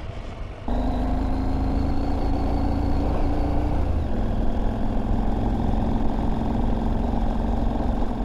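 KTM adventure motorcycle engine running while riding, heard from on the bike. It gets suddenly louder under a second in, and its steady pitch steps down a little about four seconds in.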